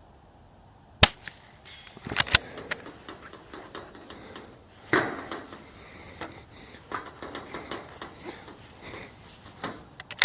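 A single .22 LR shot from a Bergara B14R bolt-action rifle about a second in. Soon after, a quick series of sharp metallic clicks as the bolt is worked to chamber the next round, followed by smaller clicks and handling noises on the rifle.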